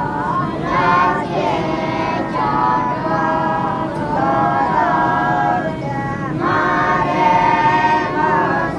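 Young Buddhist novice monks chanting a prayer together in unison, a sing-song group chant of held notes that slide between pitches.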